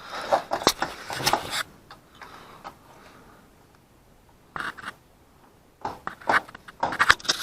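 Bursts of short clicking and scraping as tools and hands work down in the spark plug well of a 2004 Honda Odyssey, trying to catch and pull out a broken-off spark plug. They come in three spells, with a quiet gap in the middle.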